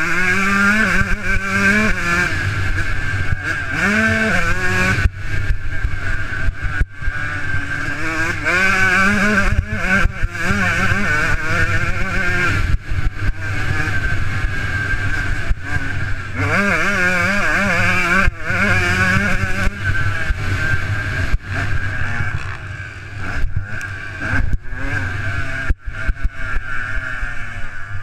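Motocross bike engine heard from the rider's helmet camera while riding a dirt track, revving up and dropping back over and over as the throttle is opened and shut.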